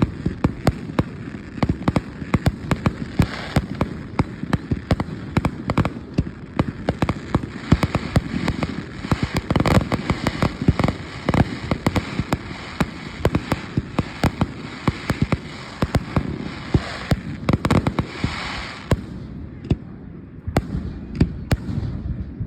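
Fireworks display: a dense, continuous run of booms and sharp cracks, several a second, with a hissing crackle swelling before a brief lull about nineteen seconds in, after which the bursts start again.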